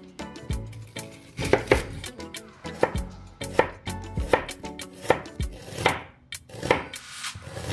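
Chef's knife slicing through a peeled onion and knocking on a bamboo cutting board, with crisp, evenly paced cuts of about one every three-quarters of a second.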